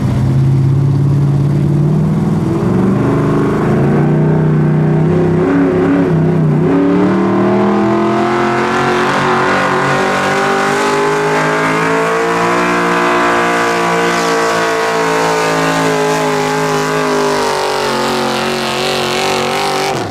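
Gas-engine 4WD pulling truck running at high revs under load, pulling a weight-transfer sled. The engine pitch climbs, dips briefly about six seconds in, climbs again and then slowly sags toward the end before cutting off abruptly.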